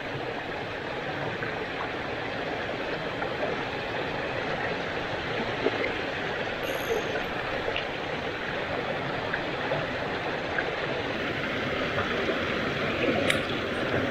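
Shallow mountain stream running over rocks: a steady rush of water. A couple of faint clicks come through it, about six seconds in and near the end.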